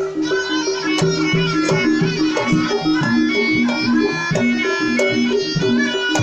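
Javanese jaranan ensemble music: a reedy shawm (slompret) plays a melody over a repeating pattern of short pitched gong-chime notes, with sharp percussion strikes here and there.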